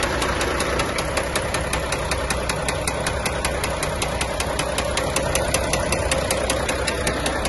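Volvo D13C inline-six diesel running at idle with a rapid, regular, sharp knock from inside the engine. The knock is the sign of a serious internal failure; this engine went on to seize.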